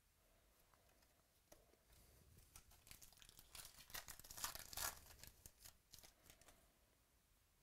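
Foil trading-card pack being torn open and its wrapper crinkled: a run of sharp crackles, loudest about halfway through, then thinning out.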